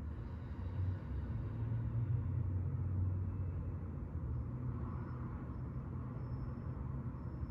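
A low rumble with no clear source, swelling about a second in and easing after about four seconds.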